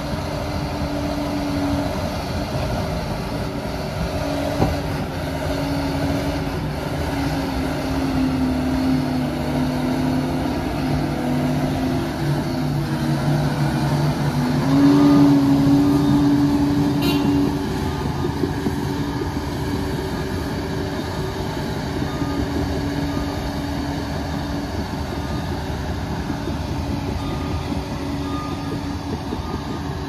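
Liebherr 746 crawler dozer's diesel engine working under load; its pitch rises and it is loudest about halfway through, as the machine pushes up close. After that a reversing alarm beeps steadily as the dozer backs away.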